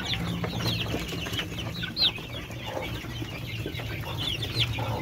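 A cage of young kampung chickens peeping, many short high cheeps overlapping, the loudest about two seconds in, over a low steady hum.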